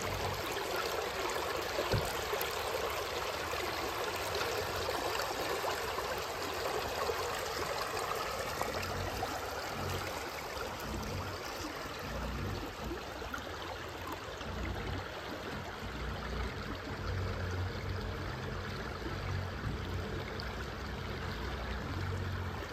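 Shallow river water flowing and splashing over a submerged stone weir, a steady rushing babble. It turns softer and lower from about halfway, with low rumbles underneath.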